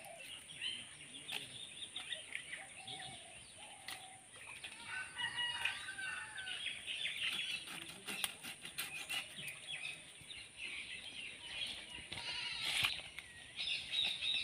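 Faint, scattered clicks and crunches of a large katla fish's head being cut on a bonti, a fixed upright blade. Birds call around it, with a string of short calls about five to six seconds in.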